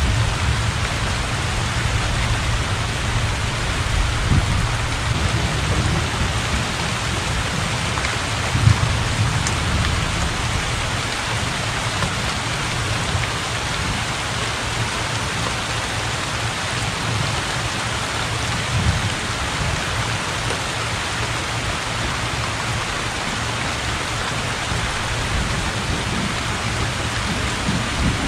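Heavy rain pouring steadily onto floodwater and a thatched roof, with a low rumble underneath that swells a little now and then.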